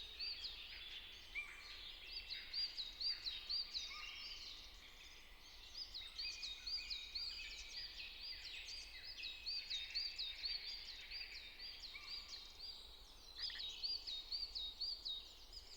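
Faint chirping of several birds: short high calls repeated in quick runs, pausing briefly a few times.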